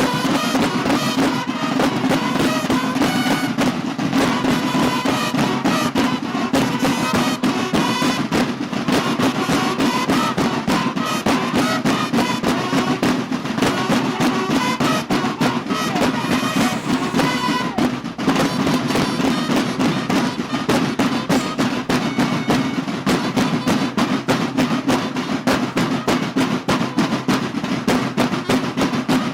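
Mexican banda de guerra playing: snare and bass drums beat a fast, continuous marching cadence, with bugle notes sounding over the drums for roughly the first two-thirds.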